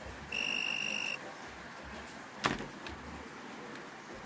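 Two-pole voltage tester's buzzer giving one steady high beep of just under a second as it detects live mains voltage at the outlet, followed by two sharp knocks as the probes are handled.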